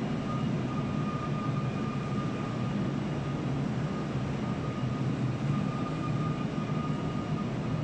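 Steady factory-workshop machinery noise: a low rumble with a thin, steady whine above it.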